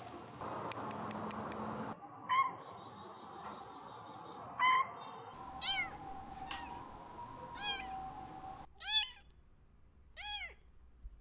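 Very young kitten mewing repeatedly, about seven short, high-pitched cries roughly a second apart, starting about two seconds in.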